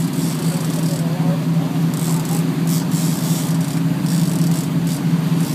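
Boat's engine running steadily at low speed, a constant drone, with brief hissing surges now and then.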